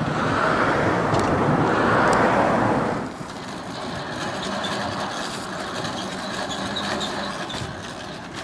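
Outdoor vehicle noise at a boat slipway. A loud rushing noise for about three seconds cuts off suddenly, followed by quieter engine noise with a few short high chirps.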